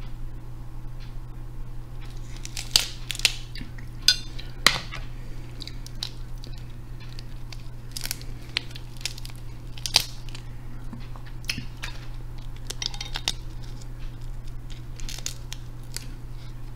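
Snow crab legs being cracked and pulled apart by hand close to the microphone: scattered sharp cracks and snaps of shell, over a steady low hum.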